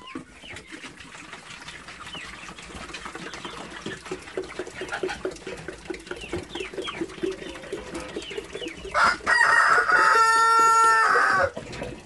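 Chickens clucking and peeping, with a quick run of low clucks through the middle. About nine seconds in, a rooster crows loudly for two to three seconds, the loudest sound.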